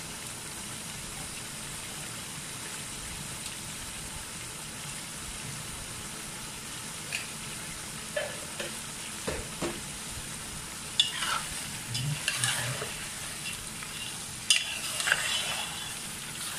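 Mutton pieces sizzling as they fry in oil in a cooking pot, a steady hiss. From about eleven seconds in, a spoon stirs the meat, scraping and clinking against the pot.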